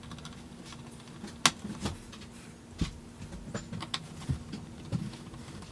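Scattered light clicks and taps of hands handling circuit boards and cables inside a plasma TV, over a steady low hum.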